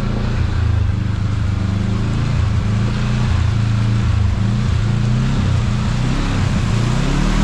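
Kawasaki KRX side-by-side's parallel-twin engine running under way, its pitch rising near the end as it revs up, with rushing wind and trail noise.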